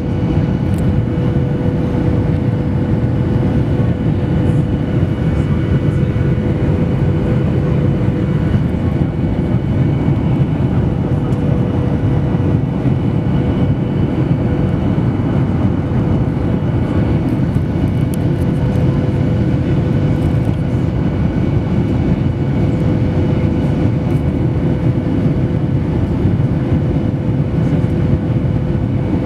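Steady cabin noise inside a Boeing 737-800, heard from a passenger seat: an even low roar of engines and airflow with a steady hum on top.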